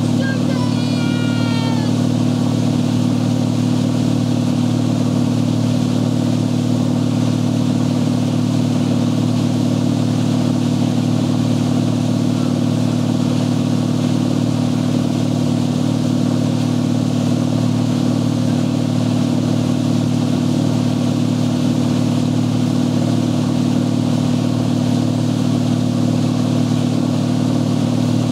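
An antique Ski Nautique ski boat's inboard engine running steadily at cruising speed, an even drone under the rush of water and wind.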